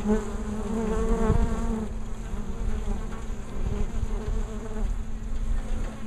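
Honeybees buzzing at the hive entrance, with a close bee's steady wing hum standing out in the first couple of seconds, then fading back into the general buzz.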